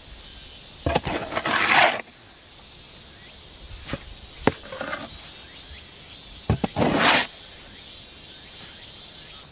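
Square-bladed shovel scraping through and scooping mortar mix in a plastic mixing tub: two long scrapes, about a second in and again near seven seconds, with a few knocks of the blade in between.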